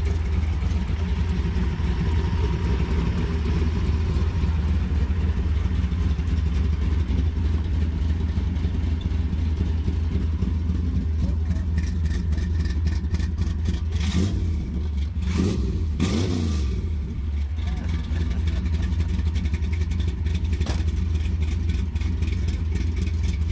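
1973 Plymouth Satellite's 451 stroker big-block V8 idling steadily, warmed up to temperature. About two-thirds of the way through come a few sharp knocks and creaks, and there is one more click near the end.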